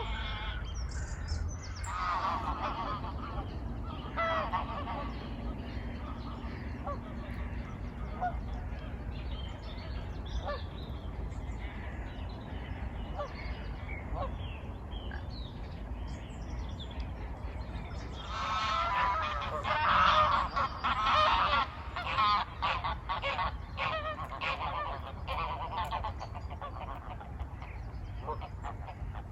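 A flock of geese honking on the water, scattered calls at first, then a loud burst of many overlapping honks about two-thirds of the way through. A steady low rumble runs underneath.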